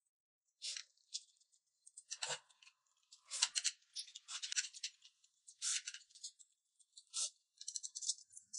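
A person slurping and chewing noodles: a string of short, hissy slurps at irregular intervals.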